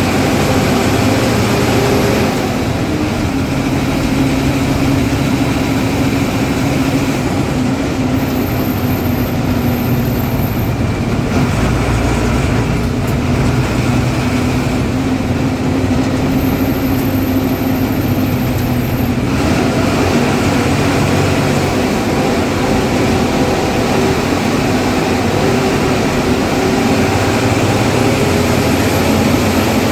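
Ashok Leyland diesel engine of a KSRTC Minnal bus running under way with a steady drone. A thin, very high whistle comes in twice, a few seconds each time.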